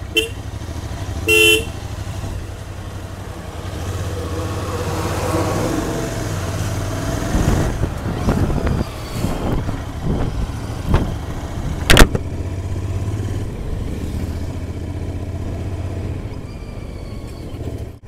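Royal Enfield Interceptor 650's parallel-twin engine running steadily on the move, its note rising for a few seconds in the middle. A vehicle horn toots briefly about a second and a half in, and a single sharp knock comes about twelve seconds in.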